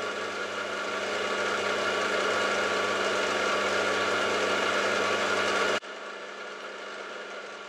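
Milling machine running steadily, its spindle turning an edge finder, with a hum and several constant whining tones. About six seconds in the louder part cuts off suddenly, leaving a quieter steady hum.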